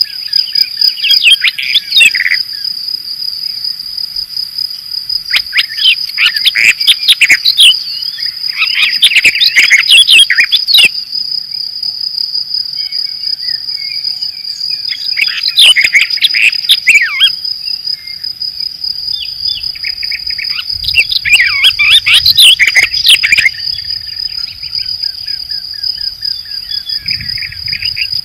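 A cricket's steady, high-pitched trill, with a songbird singing about five short, varied phrases over it.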